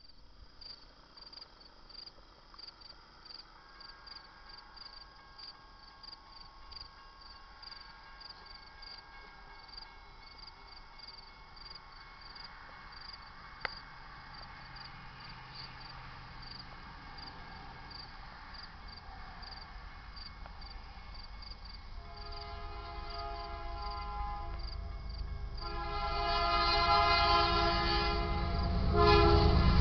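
Grade-crossing warning bell dinging steadily while the crossing gates lower. An approaching BNSF freight's rumble builds through the second half. In the last eight seconds the lead locomotive, a GE C44-9W, sounds its horn for the crossing: two long blasts, a short one, and a final blast that begins as the train nears.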